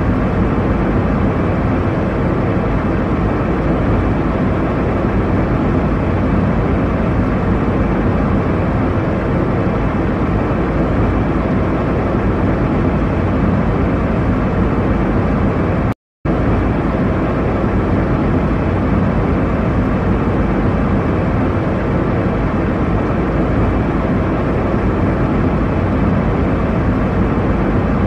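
Steady jet airliner cabin noise: an even, low-heavy rush of engines and airflow with no change in pitch, cutting out for a split second about halfway through.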